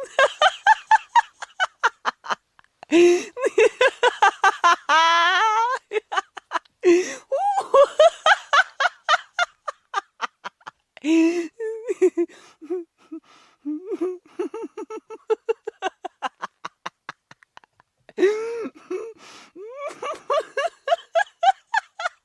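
A person laughing in long, unbroken bouts of rapid "ha-ha" pulses, about four to five a second, with brief pauses for breath between bouts.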